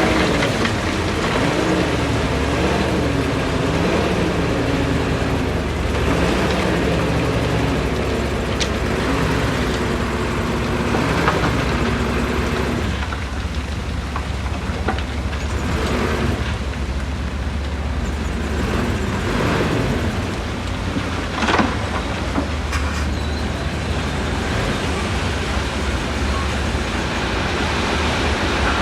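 Heavy diesel construction machinery running under load, its engine pitch rising and falling through the first half, with a few sharp knocks and clanks of rock or metal, the loudest a little past the middle.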